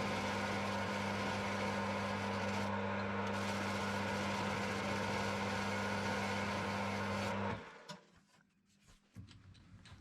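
Electric metal lathe running steadily with a strong motor hum, stopping suddenly about seven and a half seconds in, followed by a few faint clicks.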